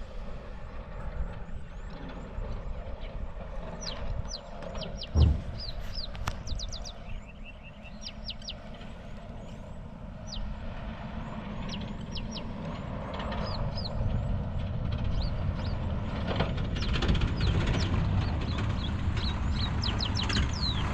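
Birds calling in many short, high, downward-sweeping chirps over a steady low rumble, with one loud low thump about five seconds in.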